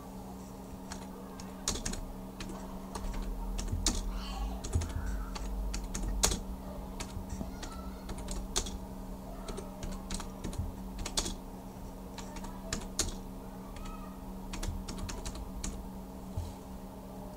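Typing on a computer keyboard: irregular key clicks as a short phrase is typed, over a steady low hum.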